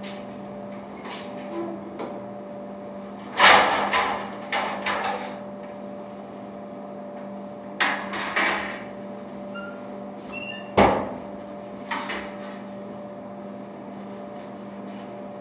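Knocks and clatter of a gas range's oven door being opened and shut and a metal baking pan lifted off the oven rack, with a loud knock a few seconds in and another about eleven seconds in and a short squeak just before it. A steady hum runs underneath.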